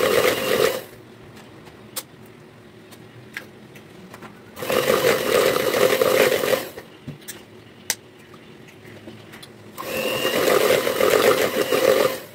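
Electric hand mixer beating a brown sugar and egg mixture in a plastic bowl, switched on in three bursts: briefly at the start, for about two seconds from just before the middle, and for about two and a half seconds near the end.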